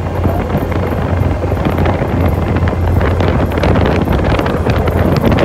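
ATV engine running steadily at speed, a low drone, with wind blowing over the microphone that gets gustier from about two seconds in.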